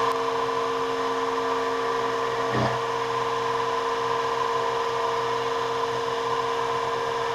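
Sieg X2 mini mill's spindle running with a fly cutter taking a light 2-thou finishing pass on a metal part: a steady machine whine made of several steady tones, smooth and without chatter. A brief knock about two and a half seconds in.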